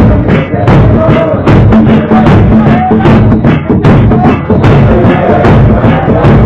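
Church hymn sung by a group of voices to a large drum beating a steady rhythm, very loud throughout.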